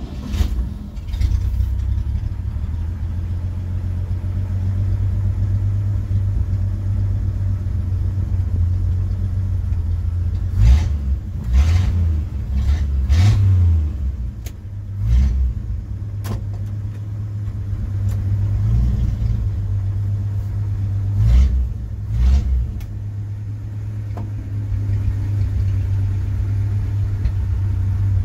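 1969 Chevrolet C10 pickup engine starting, then idling with a steady low rumble, heard from inside the cab. It is revved in several short blips in the middle stretch, and the truck pulls away near the end.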